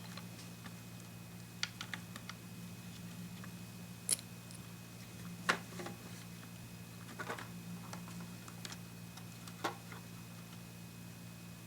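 Scattered light clicks and taps of small plastic and metal parts as a vintage transistor radio is handled and worked on during repair, with the sharpest clicks about four and five and a half seconds in, over a steady low hum.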